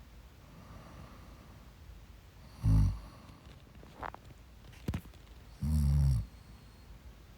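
A sleeping woman snoring: a short low snore about three seconds in and a longer half-second snore near the end, with two small clicks between them.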